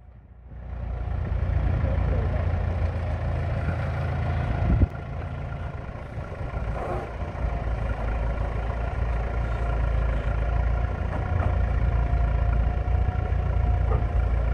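Farm tractor's engine running steadily under load as it tows a yacht on a boat trailer. It picks up about a second in, and one sharp knock comes about five seconds in.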